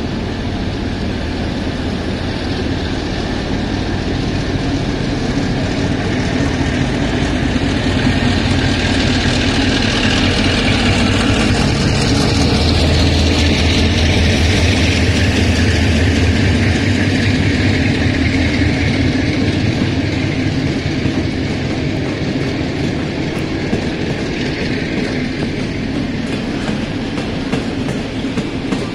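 Locomotive-hauled passenger train of RZ25T and RZ25Z coaches rolling slowly out of a station. The locomotive's steady low hum swells as it passes about halfway through, then the coaches follow with faint wheel clicks over the rail joints near the end.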